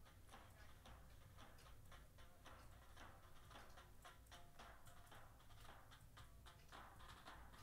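Faint, steady beat of many soldiers' footsteps falling together as a column marches in step on a paved road, about two steps a second.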